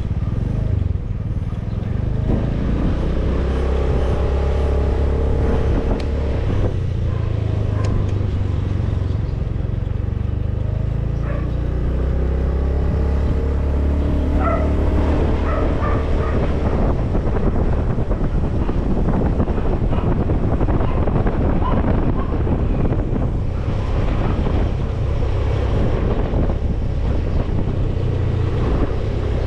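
Motor scooter's engine running while riding, its pitch rising twice as it picks up speed, over a steady low rumble.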